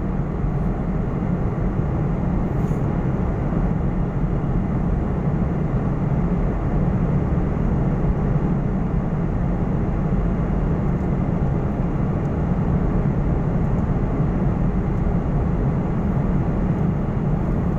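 Steady cabin drone of a jet airliner in flight, heard inside the cabin at a window seat beside the wing engine: an even, low rumble of turbofan engines and airflow.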